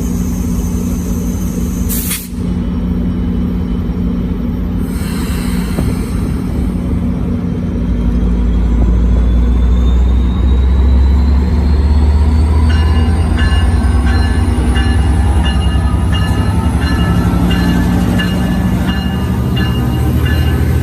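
EMD 710 diesel engine of a Metrolink F59PHR locomotive pulling a train out: a steady low running that grows much louder about eight seconds in as it throttles up, with a whine that rises slowly in pitch as the train gathers speed. Two short hissing bursts come early on, and from about thirteen seconds a ringing tone repeats about once a second.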